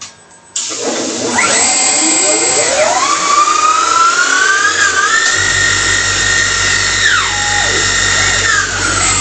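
CNC lathe spindle whining, its pitch rising as the spindle speeds up while a grooving insert parts off the workpiece, then holding steady with a low hum underneath, and falling as the spindle slows near the end.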